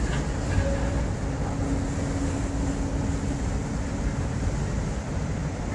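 Steady low rumble of marine diesel engines, with a steady hum over it for most of the stretch.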